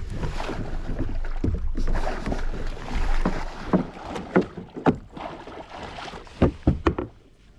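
Water splashing and sloshing beside a kayak as a hooked tope is fought alongside, followed over the last few seconds by a run of sharp, irregular knocks and thuds against the kayak.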